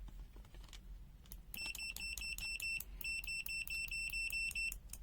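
Multimeter continuity buzzer beeping in rapid high-pitched pulses, about six a second, starting about a second and a half in, with two brief breaks.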